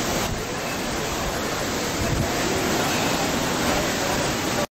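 Wind buffeting the microphone over the rush of sea water past a moving ship, a steady loud rushing noise that cuts off suddenly near the end.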